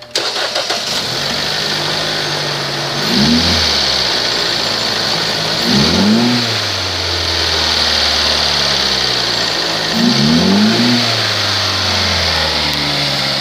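2015 Chrysler 200's 2.4-litre MultiAir four-cylinder engine starting and settling to idle, then revved briefly about three times, each rev rising and falling back to idle.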